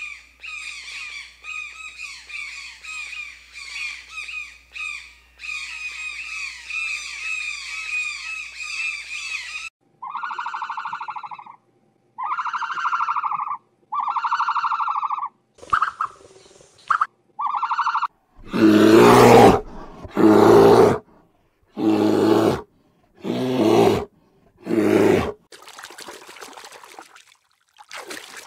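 A run of animal calls: about ten seconds of fast repeated high bird calls, then four drawn-out calls each over a second long, a few short sharp calls, and six loud calls about a second apart, which are the loudest part. A faint hiss follows near the end.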